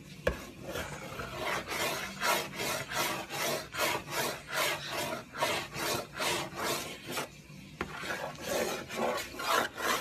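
Goffin's cockatoo scraping and gnawing at a wooden door edge with its beak: a rhythmic rasping of beak on wood, about two to three strokes a second, with a short break about three-quarters of the way through.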